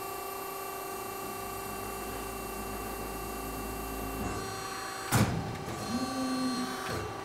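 RMT B-Genius 12-150 CNC press brake running its ram through a stroke: a steady whining machine hum with a low drone in the middle. Then a single sharp clunk about five seconds in.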